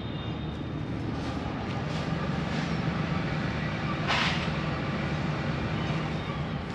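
Steady hum of distant road traffic, with a brief hiss about four seconds in.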